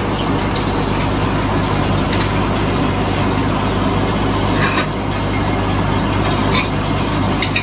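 Steady hum and rushing water of a large aquarium's filter pump and water circulation, with a few faint clicks.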